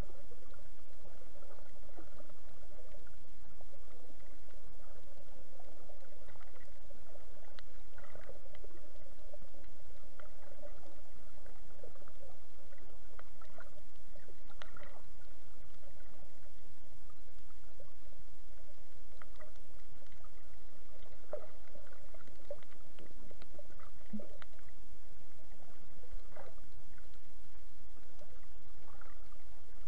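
Muffled underwater sound from a camera in a waterproof housing: a steady low rumble with faint gurgles and scattered short clicks.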